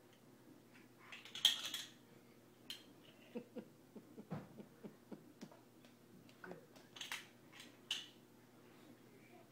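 Small plastic baby rattle being shaken and knocked about: a few short bursts of rattling and scattered clicks, the loudest about a second and a half in.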